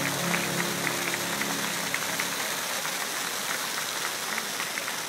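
A row of firework fountains (gerbs) hissing steadily as they spray sparks, with fine crackling through the hiss. Music underneath fades out about halfway through.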